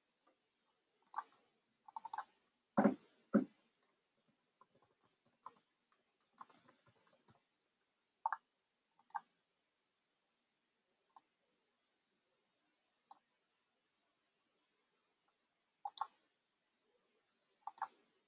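Computer mouse clicks and keyboard key taps, scattered single clicks with silence between them. About 3 s in there are two heavier knocks, then a quick run of light key taps for a few seconds.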